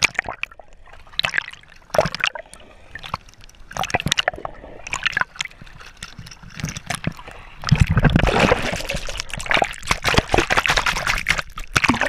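Sea water sloshing and splashing against a GoPro camera housing that dips in and out of the surface: irregular splashes and gurgles, with a louder stretch of churning water from about eight to eleven seconds in.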